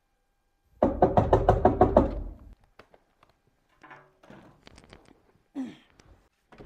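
Rapid knocking on a door, a quick run of about ten knocks lasting about a second and a half. It is followed by faint shuffling and taps of someone getting up off a sofa.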